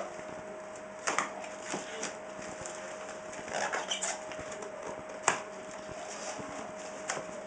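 Scattered clicks and rustles of a camera and its packaging being handled, with one sharp click about five seconds in, over a steady faint hum.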